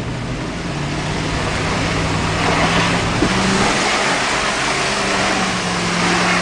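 1987 GMC Jimmy's engine revving hard under load, its note stepping up a couple of times, as the truck tries to climb a steep, slick mud hill. Under it is a heavy rush of tires spinning in the mud and flinging it against the body and windshield, the tires losing traction. Heard from inside the cab.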